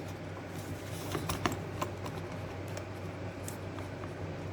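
A few light clicks and taps of electric kettle parts being handled and fitted back onto their pins, several in the first two seconds and one more later.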